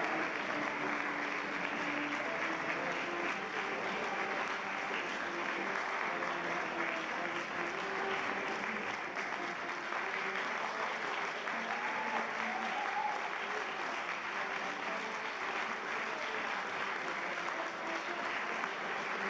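Audience applauding steadily, with voices murmuring underneath.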